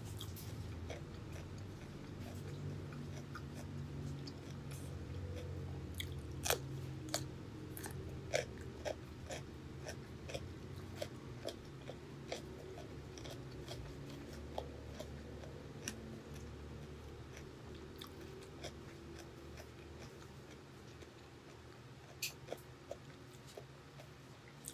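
Close-miked chewing of food, with many short crisp crunches and mouth clicks; the chewing gets quieter toward the end.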